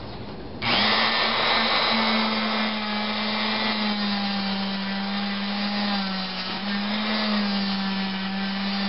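Dremel rotary tool fitted with a 36-grit grinding wheel, starting abruptly under a second in and running with a steady high-pitched whine whose pitch wavers slightly, as the wheel grinds down the casting ridges inside a runner of a Toyota 4A-GZE cast-aluminium intake manifold.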